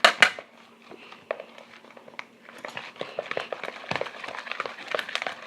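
Slime being stirred in a bowl with a spatula: sticky scraping with irregular clicks of the utensil against the bowl. Two sharp knocks come right at the start, and the stirring gets busier from about halfway.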